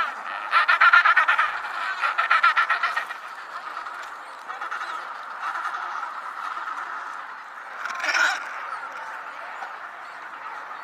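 Penguins calling. Rapid, pulsing brays fill the first three seconds, then many birds chatter steadily together, with one louder call about eight seconds in.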